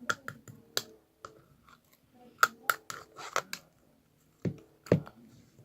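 Irregular sharp clicks and taps of small objects being handled, about a dozen in the first three and a half seconds. Two louder, deeper knocks follow near the end.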